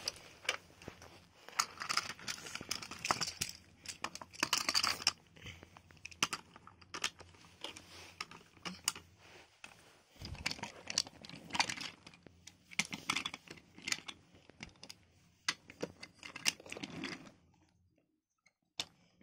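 Toy trains being pushed and knocked about on wooden track by hand: a run of irregular clicks, knocks and scraping rustles that dies away to near silence near the end.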